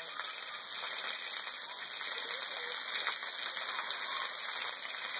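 Thin waterfall spilling off a rock overhang, its water falling in streams and droplets and splattering onto a wet rock floor: a steady, even splashing hiss.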